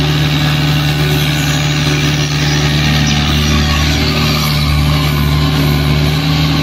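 Heavy truck engine running steadily: a constant low drone with hiss above it.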